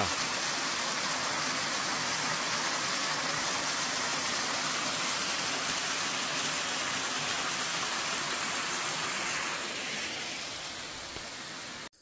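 Mountain stream rushing steadily over rocks. It is a little softer near the end, then cuts off abruptly.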